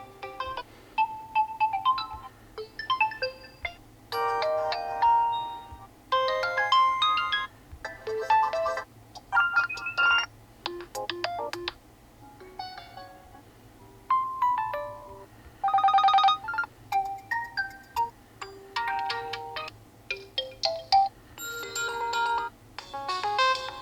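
Realme C55 default ringtones played one after another: short melodies, the tune changing every second or two, with one trilling phone-bell ring about two-thirds of the way through.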